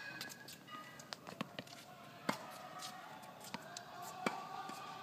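Tennis ball being hit by racquets and bouncing on a hard court during a rally: single sharp pops a second or two apart, the loudest about two seconds in and again a little after four seconds.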